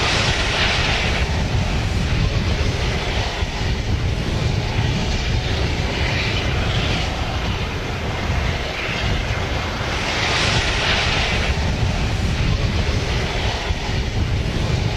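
Jet engines of an Airbus A380 running: a steady low rumble with a hissing whoosh that swells about a second in, around six seconds and again around ten seconds.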